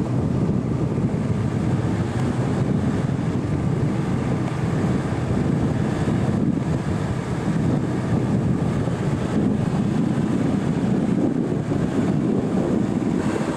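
Car engine running as the car drives through soft sand, mixed with wind buffeting the microphone.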